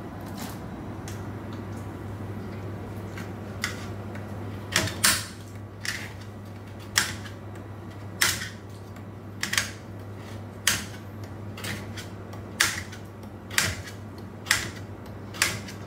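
Kitchen knife chopping on a cutting board: sharp, single or doubled chops about once a second, starting a few seconds in, over a steady low hum.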